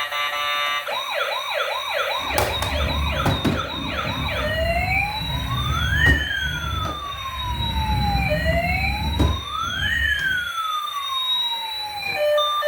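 Electronic siren of a toy emergency vehicle: a fast yelp of quick repeated sweeps for the first few seconds, then a slow wail rising and falling twice, with a low rumble under most of it.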